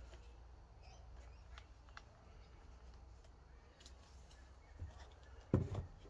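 Faint handling of a leather knife sheath, with a few small clicks, then a short knock about five and a half seconds in as it is put down on the wooden workbench.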